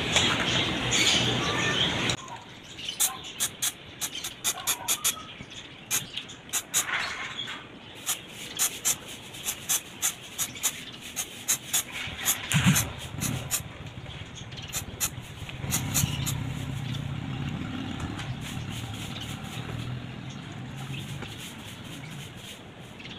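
Aerosol MAF sensor cleaner sprayed onto a sensitive mass airflow sensor in the air filter housing. It starts with a hiss of about two seconds, then comes a run of short puffs, gentle spraying for a sensor described as very sensitive.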